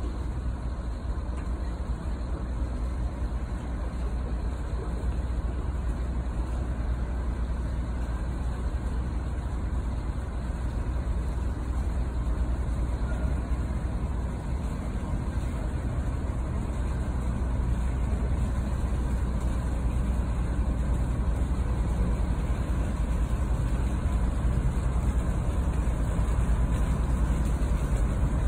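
Steady low rumble of a heavy-lift cargo ship under way, slowly growing louder as the ship passes below.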